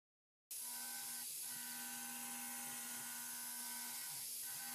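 CNC vertical mill's spindle running with a steady whine and hum as a thread mill cuts threads in a brass ring. It starts suddenly about half a second in, with a faint swish twice, about three seconds apart.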